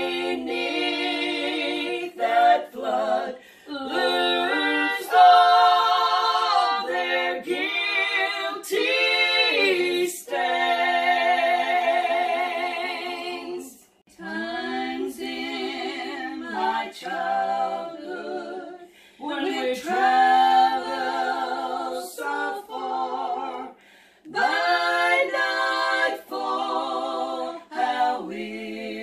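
Several women's voices singing a worship song together a cappella, with no instruments, in sung phrases separated by short breaths and pauses.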